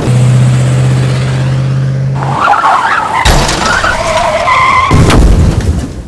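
Tata pickup truck driven hard on a dirt road: a steady engine drone for about two seconds, then tyres skidding with a loud, wavering squeal for a couple of seconds, fading near the end.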